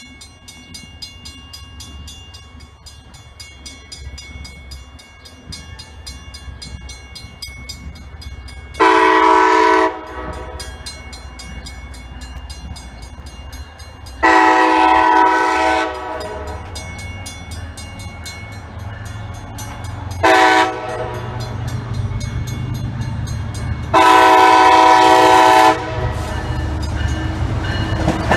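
MBTA commuter rail HSP46 diesel locomotive sounding its horn in the grade-crossing pattern of two long blasts, a short one and a final long one, as it approaches. Under the horn the locomotive's engine rumble grows louder as the train nears.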